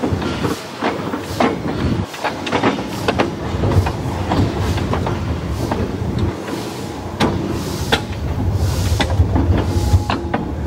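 Narrow-gauge steam locomotive running along the track, its wheels rumbling and clicking over rail joints and switch points at irregular intervals.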